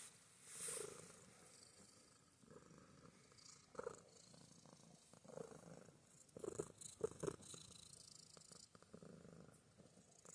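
Domestic cat purring faintly, close up, swelling and fading with each breath. A few short, sharper sounds come about two-thirds of the way through.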